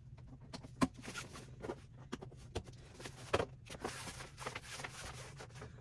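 Parts of a table stand being handled and fitted together by hand: scattered light knocks and clicks, with a sharper knock about a second in and a few more around the middle.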